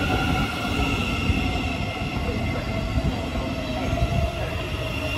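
Thameslink Class 700 electric multiple unit running past along the platform: a steady low rumble of wheels on rail, with faint steady high-pitched tones above it.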